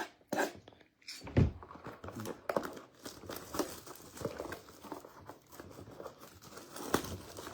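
A box of Donruss Elite football cards and its plastic wrap being torn open and handled: crinkling plastic and tearing cardboard, with a few light knocks.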